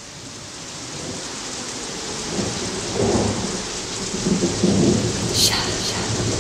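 Steady rain with low rumbles of thunder, growing louder, and a sharp crack about five seconds in.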